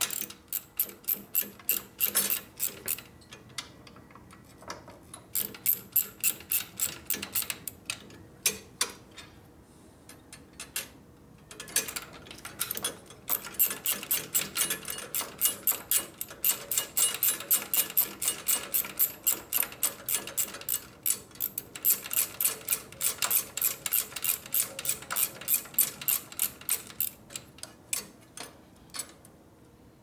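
Quarter-inch drive ratchet clicking in quick runs, several clicks a second with short pauses between, as a bolt is backed out.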